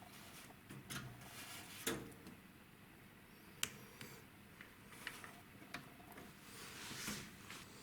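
Faint, scattered clicks and rustling from hands handling computer parts, with two sharper clicks about two and three and a half seconds in.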